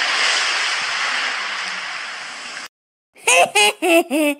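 Cartoon splash sound effect: a long noisy rush that fades slowly and stops suddenly, followed about half a second later by four short bursts of laughter.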